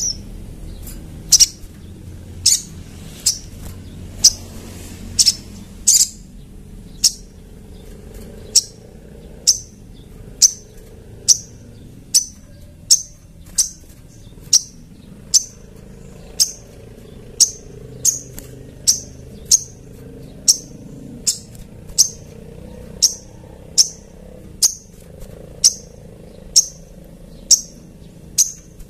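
Sogon (brown-throated sunbird) calling a steady series of short, sharp, high-pitched chirps, about one a second.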